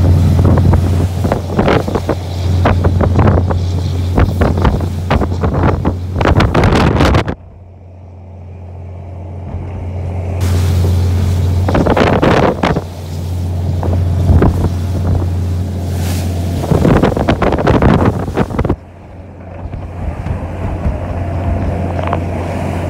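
Lobster boat under way in rough sea: the engine runs with a steady low drone under rushing spray and waves slapping the hull, with wind buffeting the microphone. The sound drops sharply twice, about 7 and 19 seconds in, then builds back up.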